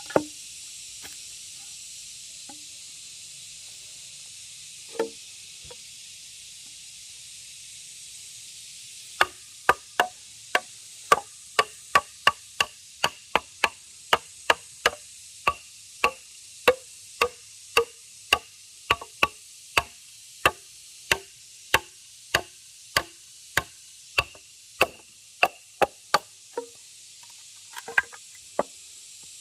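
Bamboo struck repeatedly, about two sharp knocks a second after a single knock near the start, each knock with a short hollow ring, over a steady high hiss.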